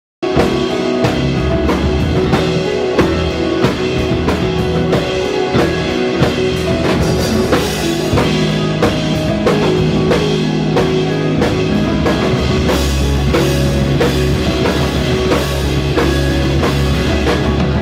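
Rock music with a steady drum kit beat, bass and guitar.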